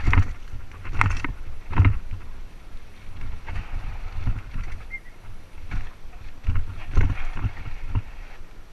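Mountain bike rolling downhill on a rocky, sandy dirt trail: tyres crunching over sand and rock, with irregular knocks and rattles from the bike as it hits bumps, about one a second, over a steady low rumble.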